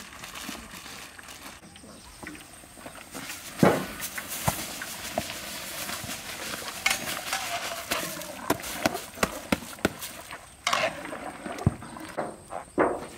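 Raw rice poured from a woven basket into a large wok of boiling water, a rushing hiss with scattered knocks and clicks, then a metal ladle knocking as the rice is stirred.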